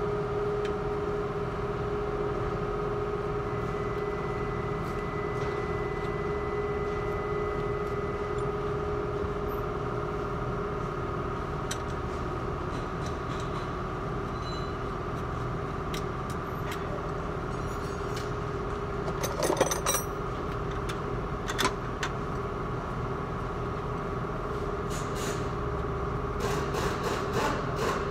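A steady machine drone with a constant hum. Short metal clinks come from hand work on a front shock absorber and coil spring mounting: a few about two-thirds of the way in and a quick cluster near the end.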